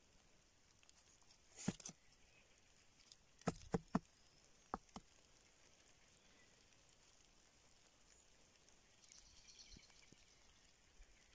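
Mostly quiet, broken by a few sharp handling knocks close to the microphone: one about two seconds in, three in quick succession about four seconds in, then two more. A faint rustle follows near the end.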